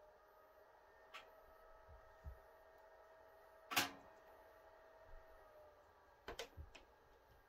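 Wood fire burning in a closed Kuma wood stove: a few faint, sharp pops and ticks. The loudest comes about halfway through and a quick cluster of three or four follows near the end, over quiet room tone.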